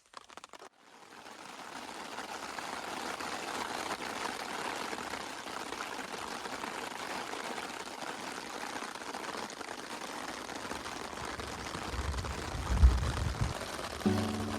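Steady rushing of water, like a pour or a stream, with a few low thumps about twelve to thirteen seconds in. Music starts just before the end.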